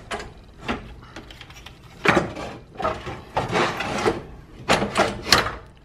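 A rubber radiator hose being worked by hand onto the outlet neck of an aluminium Koyorad radiator: several short bursts of rubbing and scraping, with a few sharp clicks near the end.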